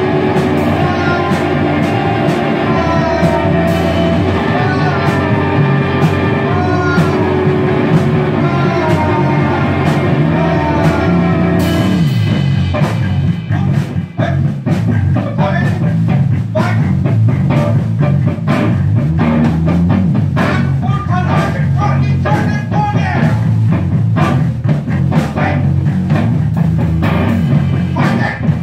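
Rock trio of electric guitar, electric bass and drum kit playing live. About twelve seconds in, the music changes abruptly from sustained, sliding guitar lines to a busier, drum-heavy section.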